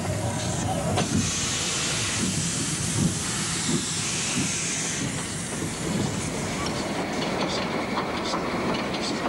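Small metre-gauge 0-6-0 steam tank locomotive working slowly, with steady steam hiss and low exhaust beats through the first half. Sharp clicking of wheels over rail joints takes over in the second half.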